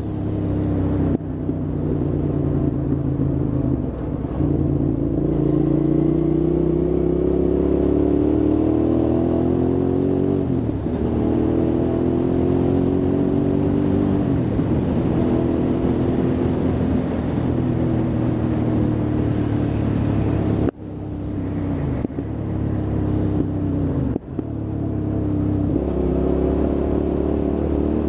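Hyosung GT650R's V-twin engine accelerating under load. The pitch climbs steadily, drops back at each gear change and climbs again, several times over. A couple of sharp, brief breaks in the sound come about three-quarters of the way through.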